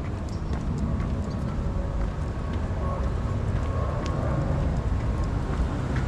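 Low wind rumble on the microphone, with a few faint, thin chime tones from a distant school chime over an outdoor loudspeaker and small scattered clicks.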